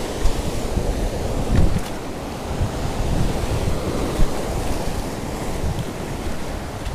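Sea waves breaking and washing over a rocky reef shelf, a steady rush of surf, with gusts of wind buffeting the microphone.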